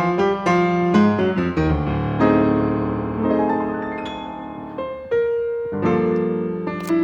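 Jazz piano music, chords and melody notes struck and left to ring.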